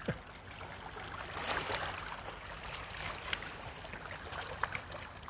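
Small river waves lapping and washing, a soft uneven wash with a few light splashes.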